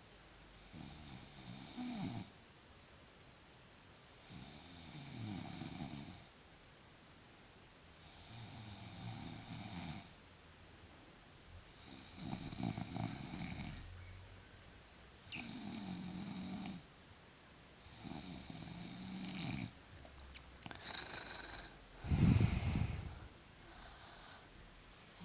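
A sleeping person snoring, a rough snore on each breath about every three to four seconds with quiet between them; the loudest snore comes near the end.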